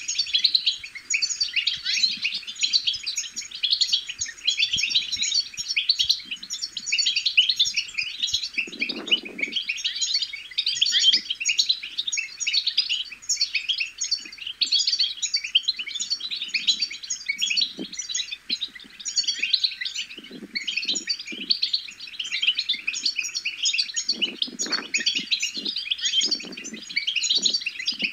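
European goldfinch song: a continuous, rapid, bubbling twitter of quick chirps and trills. A few low muffled thumps break in, one about nine seconds in and several near the end.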